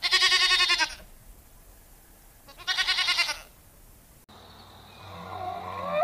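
Domestic goat bleating twice, each a quavering call of about a second, the second coming about two and a half seconds after the first.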